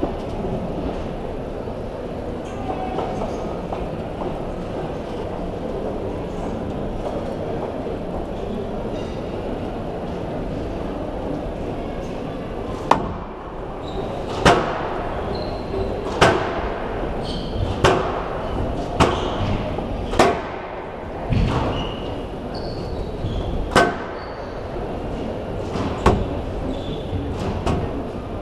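Squash rally: the ball smacks off the rackets and the court walls, sharp hits every second or two, starting about halfway through. Before that there is only a steady crowd murmur, which stays under the hits.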